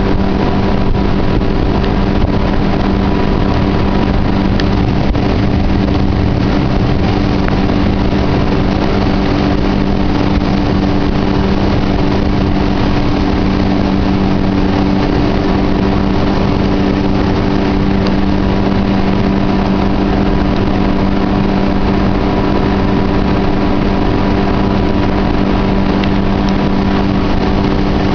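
Yamaha 60/40 outboard jet running at a steady, unchanging throttle as the jet boat cruises, an even engine drone with a low rushing noise beneath it.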